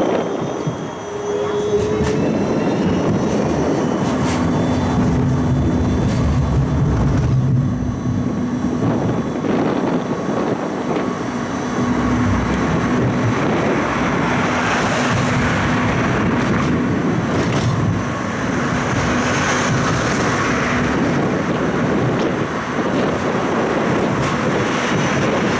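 Siemens Combino tram running steadily along its track, heard from inside the car: continuous wheel-and-rail rumble with a steady hum through much of it.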